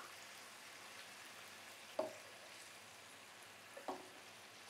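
Marinated chicken drumsticks sizzling in oil in a nonstick frying pan over medium-low heat, with two sharp knocks of tongs against the pan as the pieces are turned, about two seconds in and again near the end.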